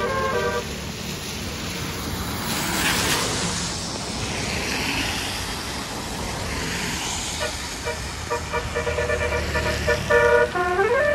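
Basuri multi-tone bus air horn ('telolet') playing a melody that breaks off half a second in, then a bus going by with engine and road noise and a rush of air about three seconds in. The horn melody starts again about eight seconds in and ends in a rising glide to a held chord.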